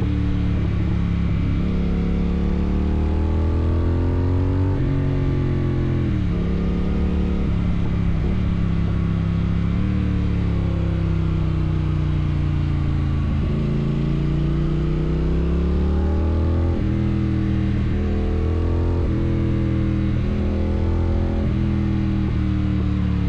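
Triumph Thruxton RS 1200 cc parallel-twin engine through a Weslake exhaust with its dB killer removed, pulling hard with the pitch climbing and then dropping several times as it shifts up and eases off.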